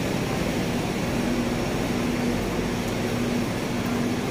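Steady mechanical drone and hiss from an air-conditioned passenger train's coaches, with a faint hum that comes and goes.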